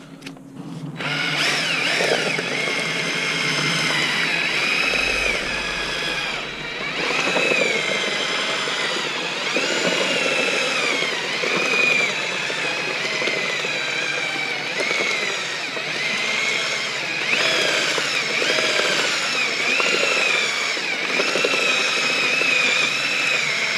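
Cordless drill turning a paddle mixer through a bucket of wet paper pulp and sawdust. It starts about a second in and runs continuously, its motor whine wavering up and down as the load on the paddle changes. This is the mixing stage of making paper-and-sawdust fire briquettes.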